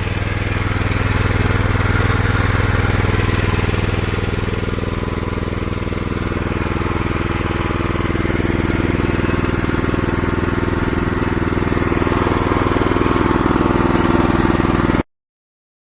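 Engine of a homemade hydraulic skid steer loader running steadily, cutting off abruptly near the end.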